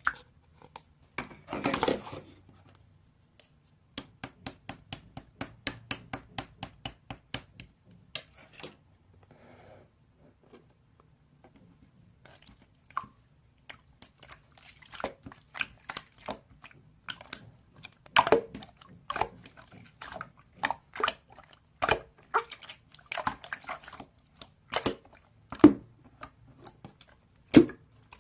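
Slime being squished and poked by hand, making sharp, wet clicks and pops. A regular run of about three clicks a second gives way to a denser, irregular series of pops.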